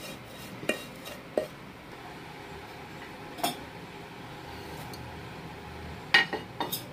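Metal spoon knocking and scraping against a pan and a metal pot as fried vermicelli is scooped out and tipped into milk: a few separate knocks, then a quick cluster of clinks near the end, the loudest.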